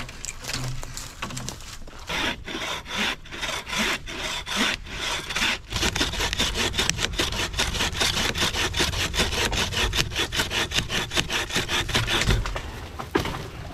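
Wooden frame saw (bucksaw) cutting through a log by hand, its blade rasping back and forth in even strokes. The strokes start slow about two seconds in, turn quicker and steadier about six seconds in, and stop shortly before the end.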